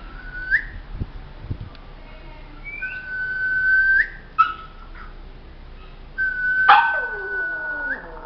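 Maltese dog whining in high, whistle-like tones. Several short whines and two long held ones end in a quick upward flick, with a sharper bark-like yelp and a falling whine about two-thirds of the way in.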